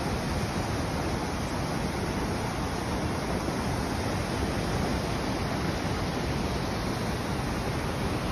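Steady rushing storm noise of typhoon wind and rain, with wind buffeting the phone's microphone.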